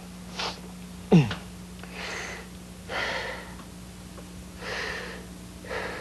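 A puppeteer's voice making short breathy sighs and snuffles as a puppet settles down to sleep, about five breaths a second or so apart, with one sharp sound falling in pitch about a second in.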